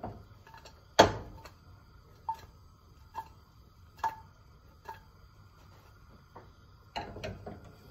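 Metal utensil clinking against a stainless-steel frying pan on the stove while food is stirred: one loud clank about a second in, then four lighter ringing clinks a little under a second apart, and a few more clinks near the end.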